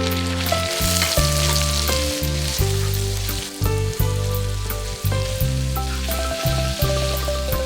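Noodles and vegetables sizzling as they are stir-fried in a hot pan, under background music.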